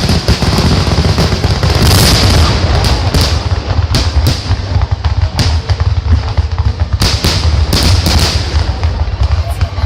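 Loud fireworks display: a dense barrage of sharp bangs over continuous crackling.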